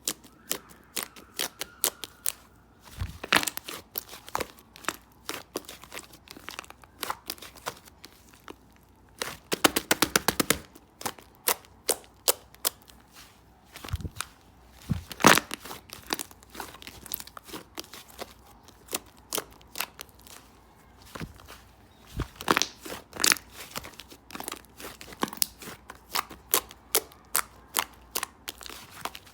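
White slime squeezed and pressed by hand, giving an uneven run of sharp clicks and pops. A quick rattle of many clicks comes about ten seconds in.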